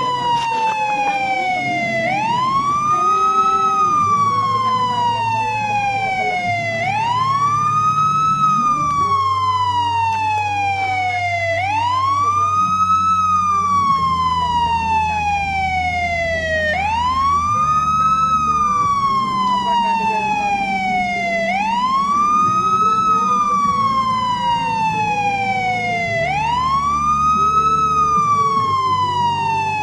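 Police siren wailing. The pitch rises quickly, then falls more slowly, in a cycle that repeats about every five seconds, with a faint low hum underneath.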